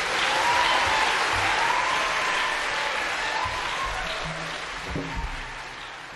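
Concert audience applauding at the end of a song, loudest in the first couple of seconds and then slowly dying away.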